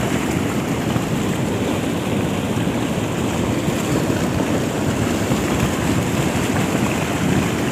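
Steady rushing of a cold lahar, a volcanic mudflow of water, ash and rock, pouring down a river channel.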